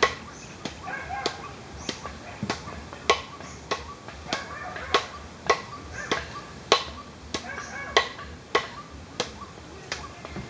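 Steady rhythmic knocking: a sharp knock about every 0.6 seconds, like hammering, keeping an even beat throughout.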